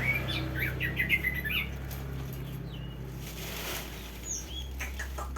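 Nias hill myna calling: a quick run of short high chirps, then a few single sliding whistled notes.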